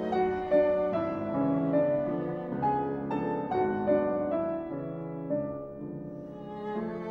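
Background music: a slow melody of held notes on piano and bowed strings, changing about twice a second, growing softer about six seconds in before picking up again.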